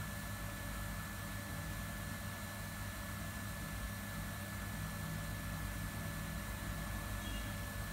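Steady hum of kitchen machinery running, with an even hiss and a thin, steady high-pitched whine over it.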